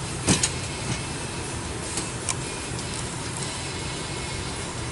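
A few sharp clicks and taps as a leather seat cover is pulled and tucked over a truck's rear bench seat. The loudest click comes about a third of a second in, and lighter ticks follow about two seconds in. Under them runs a steady low rumble and hiss.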